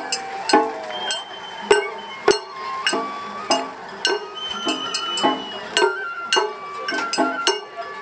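Japanese festival hayashi music from a dashi float: a high bamboo flute plays held notes and short phrases over frequent sharp clanging strikes of a small hand gong, with an occasional drum beat.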